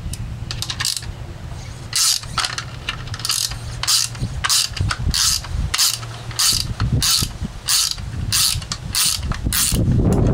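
Hand socket ratchet clicking in repeated short strokes, about three every two seconds, as a threaded fitting is turned in the plastic housing of an outboard's vapor separator tank.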